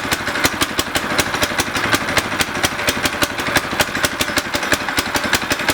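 Harbor Freight Predator 212cc single-cylinder go-kart engine with its stock muffler, idling steadily just after starting, with regular even exhaust pulses. The choke is still on.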